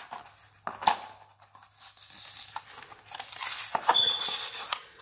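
Cardboard-and-plastic toy packaging pulled and torn at by hand, crinkling and crackling with sharp snaps. It grows busier and louder in the last couple of seconds.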